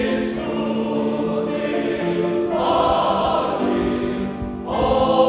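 Male voice choir singing in sustained chords, moving to new chords about halfway through and again near the end, where it grows louder.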